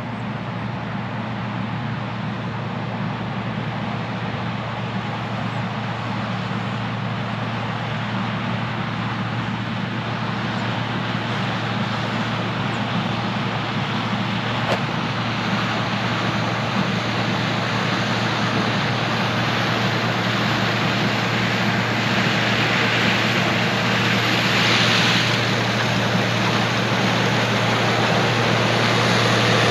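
Case IH 1666 combine's turbocharged six-cylinder diesel and machinery running with a steady low drone, growing gradually louder as it approaches.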